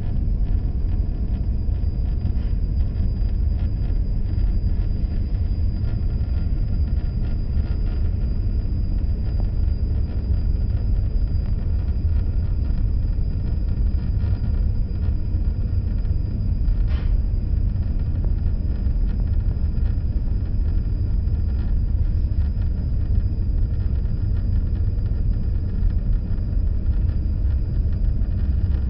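Steady low rumble of a moving car, the road and wind noise of the car on the move, with a faint high whine.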